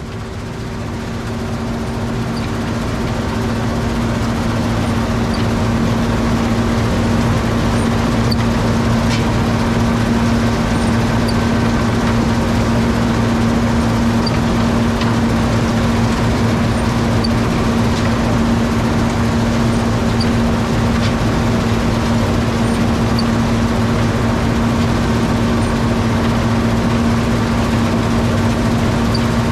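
John Deere 7720 Turbo combine running steadily while harvesting wheat, its turbocharged engine giving a constant deep hum under a broad machinery noise. The sound fades in over the first few seconds.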